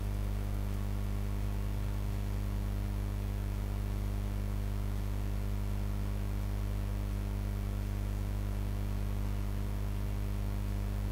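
Steady low electric hum with evenly spaced overtones, unchanging throughout, with no stitching rhythm or needle clatter.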